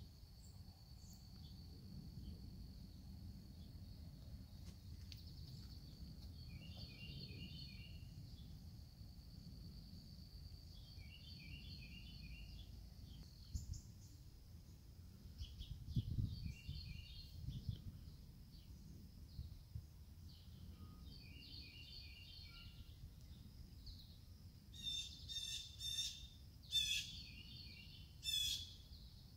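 Songbirds calling in short repeated chirped phrases every few seconds, with a few louder, sharper calls near the end. A thin, steady high whine and a faint low rumble lie underneath.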